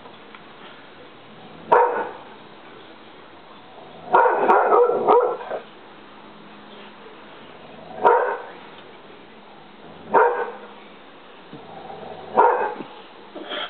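English springer spaniel barking: single barks every two seconds or so, with a longer run of barks about four seconds in.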